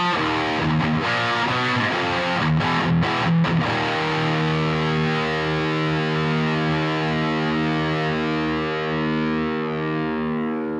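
High-gain distorted electric guitar through a Laney Ironheart IRT120H tube amp head. A short riff of changing chords is followed, about four seconds in, by a final chord held and left ringing.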